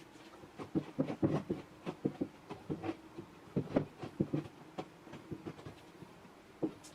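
Irregular light knocks and taps, with a few sharper clicks, coming thickly for the first few seconds and thinning out near the end.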